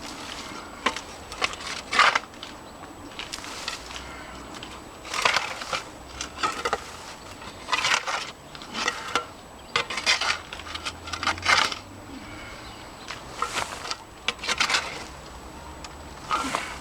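Digging and tearing in soil matted with bramble and bindweed roots: irregular clusters of crunching and scraping, a second or two apart.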